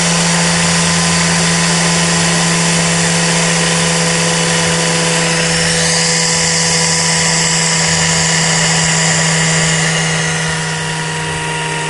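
Steam-driven Tesla (bladeless disc) turbine spinning at speed: a steady whine made of several fixed tones over a loud hiss of steam. The hiss eases slightly about ten seconds in.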